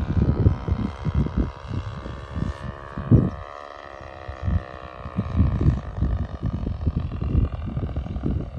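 Gerald Smith Skylark model aircraft engine running steadily in flight on a control-line model, its pitch sagging slightly and then holding. Wind is buffeting the microphone.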